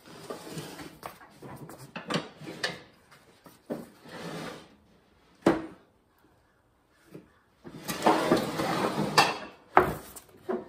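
Riding-mower cutting deck being pushed under the tractor, scraping over the concrete floor in several shoves with sharp metal clunks between them; the longest and loudest scrape comes about eight seconds in.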